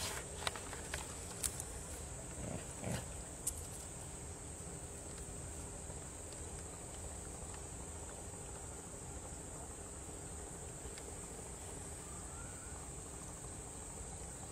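Insects buzzing steadily on a high, even pitch, with a few sharp clicks and knocks in the first few seconds.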